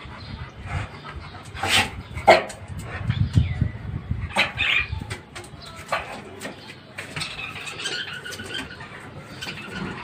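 A pet dog giving a few short barks and whines in prey-drive excitement at small birds in a cage, the loudest just after two seconds in; the caged budgerigars twitter in the second half.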